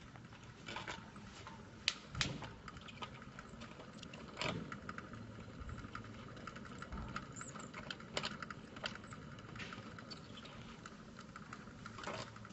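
Vintage kymograph's drive mechanism running as its drum turns: a faint steady hum with light, irregular clicks and ticks.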